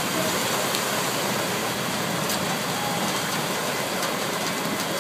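Steady hiss of a heavy downpour and floodwater running across a street, with a low vehicle engine rumble underneath, a few faint ticks of drops or splashes.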